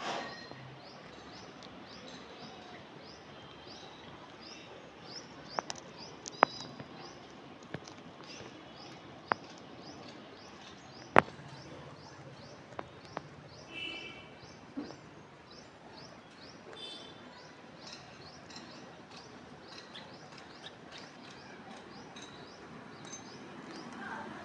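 Birds chirping: a steady run of short, high chirps, two or three a second. A louder call comes about halfway through and another a few seconds later. Several sharp clicks are scattered through the first half.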